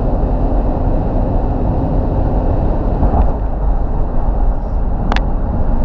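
Steady road and engine noise heard inside a moving car's cabin, with one short click about five seconds in.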